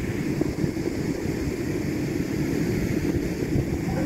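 Wind buffeting the microphone: a steady low rumble with constant small gusty fluctuations.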